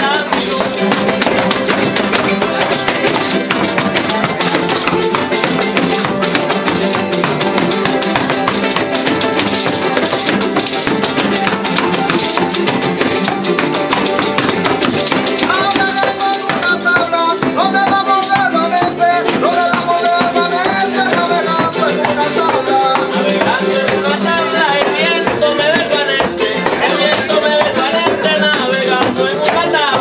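Son jarocho music: jaranas and a requinto strummed and plucked together, a pandero (frame tambourine) jingling, and zapateado footwork on a wooden tarima. Voices come in singing about halfway through.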